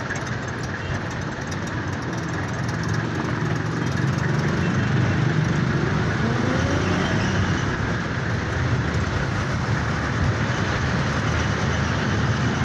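Jeepney engine running steadily under way, heard from the front seat of the cab together with road noise; it grows louder about four seconds in as the jeepney picks up speed.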